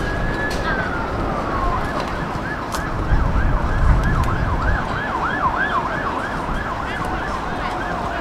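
Emergency vehicle siren: a slow wail that rises and falls, then switches to a fast yelp of about three cycles a second.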